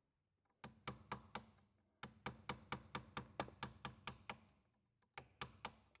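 Light, sharp metal-on-metal taps of a hammer on a punch set in the head of a steering-lock safety shear bolt, knocking the headless bolt round to unscrew it: four taps, then a quick run of about ten at some four a second, then three more near the end.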